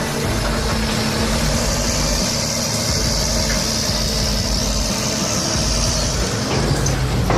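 Caterpillar D6T bulldozer's diesel engine running steadily, with a high hiss over it from about a second and a half in until near the end.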